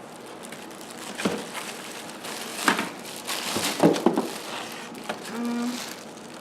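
Packaging crinkling and rustling as the contents of a new vacuum cleaner's box are handled, with several sharp knocks and crackles. The loudest comes a little under four seconds in.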